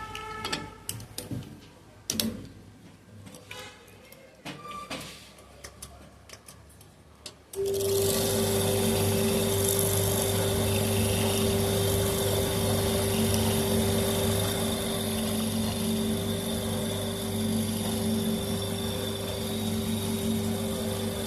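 Scattered clicks and knocks of handling, then about seven and a half seconds in an electric motor switches on and runs steadily, with a low hum and a steady mid-pitched whine.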